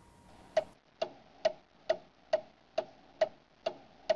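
Clock ticking steadily, a little over two sharp ticks a second, starting about half a second in. It counts off the ten-second pressure hold on an outboard lower unit's seals.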